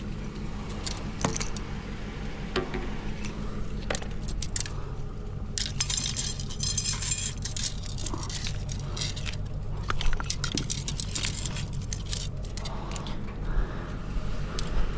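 Small metal pieces clinking and rattling against each other as scrap metal is handled, with a dense run of clinks about six to eight seconds in and a sharp clank at about ten seconds. A steady low hum runs underneath.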